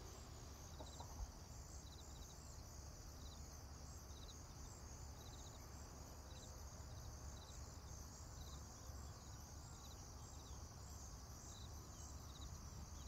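Near silence: faint insects chirping in short trills, repeated every second or so over a steady faint high-pitched drone, with one small click about a second in.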